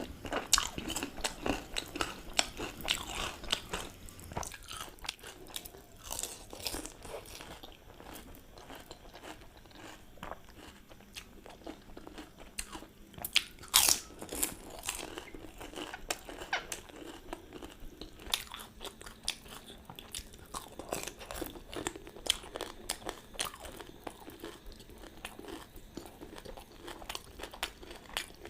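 Pani puri being eaten: crisp hollow puris crunched between the teeth, with chewing in between, a continuous series of crackly bites with the loudest crunches about halfway through.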